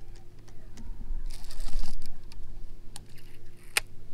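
Clicks and handling of a baitcasting rod and reel during a cast and retrieve: scattered light clicks, a short hiss about a second and a half in, and one sharper click near the end, over a low steady hum.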